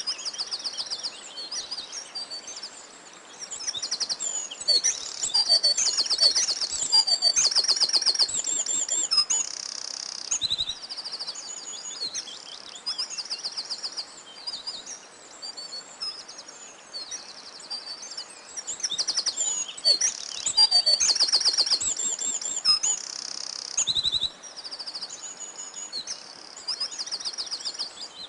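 Several songbirds singing over one another: fast high trills of rapidly repeated notes mixed with short chirps and whistles, loudest in two spells about four seconds in and again about twenty seconds in.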